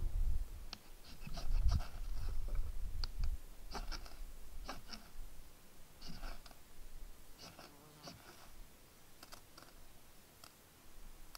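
A knife blade scraping in short, irregular scratchy strokes, several in quick clusters, while tinder is readied for a fire. A low rumble underlies the first three seconds.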